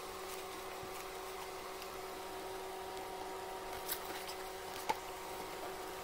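Faint handling of a motorcycle helmet's padding and straps, with two small clicks about four and five seconds in, over a steady low room hum.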